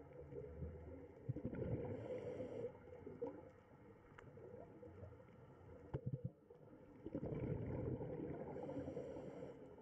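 Underwater ambience: steady low rumbling, gurgling water noise with a few sharp clicks and two brief hissy bursts, about two seconds in and near the end.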